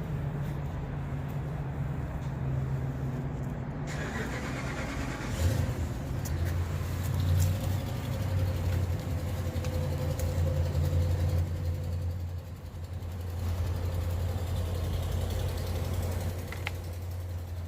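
A vehicle engine running steadily. Its low hum changes and grows stronger about five seconds in.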